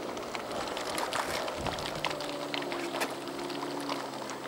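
Small open boat's motor running steadily at low speed, a low hum whose pitch shifts slightly about two seconds in, with scattered faint clicks.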